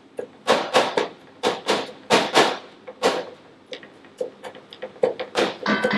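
Kitchen knife chopping tomatoes on a plastic cutting board: a run of quick, uneven knocks, often in pairs, two or three a second.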